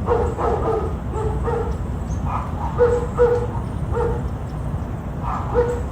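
Dog barking repeatedly, about ten short barks at an uneven pace.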